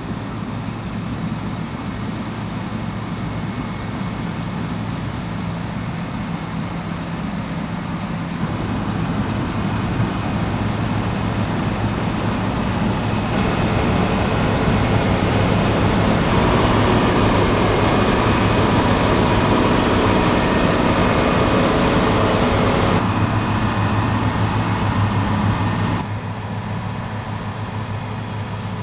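Claas Lexion 6800 Terra Trac combine harvester at work cutting wheat: its 340 kW Mercedes six-cylinder engine and threshing machinery make a steady, loud drone with a deep hum underneath. The level steps up partway through, is loudest in the middle stretch, and drops back abruptly near the end.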